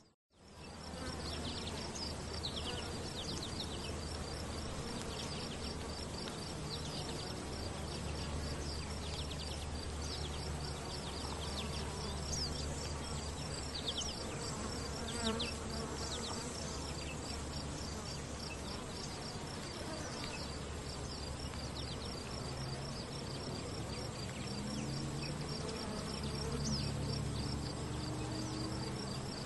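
Outdoor wildlife chirping: a steady, evenly repeating high-pitched chirp that runs on throughout, with short falling chirps scattered over it and a low hum underneath.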